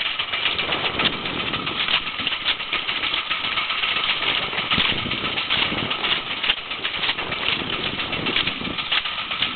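Small boat's motor running steadily under way, with constant crackling noise over it.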